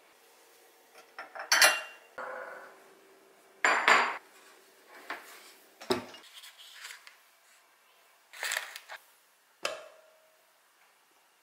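Dishes and kitchenware being handled: about six separate clinks, clatters and knocks. One is a duller thump about six seconds in, and the last is a clink that rings briefly.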